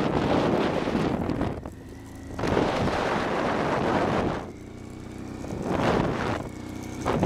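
Honda Transalp V-twin motorcycle engine running under way, loudness swelling and falling back three times, with wind rushing over the microphone. In the quieter stretches the engine's steady note comes through more clearly.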